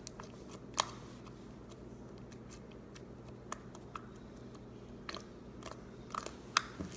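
Sticky white slime being poked and pressed with fingertips, giving scattered small clicks and pops as it pulls off the skin; the sharpest pops come about a second in and near the end.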